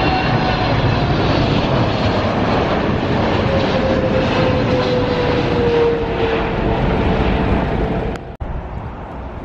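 Twin-engine jet airliner passing low overhead on final approach to land: a loud, steady engine rush with a tone that falls slowly in pitch as it goes by. The sound cuts off abruptly about eight seconds in, leaving a quieter steady outdoor background.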